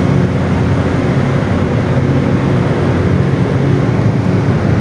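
Steady low rumble of city traffic and vehicle engines, with a constant low hum through it.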